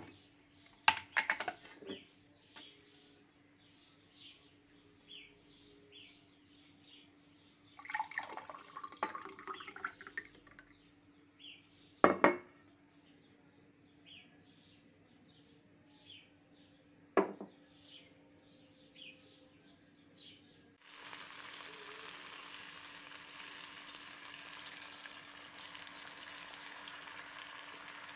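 Scattered knocks and clinks of jars and dishes being handled on a countertop, then, about three-quarters of the way through, a steady sizzle starts as eggs fry in a pan. Faint bird chirps in the background.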